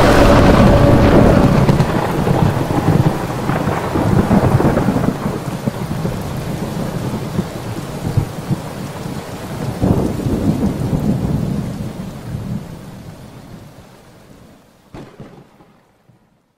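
A deep rumble over a steady hiss, fading gradually to silence, with a second swell of rumble about ten seconds in and a brief faint tick near the end.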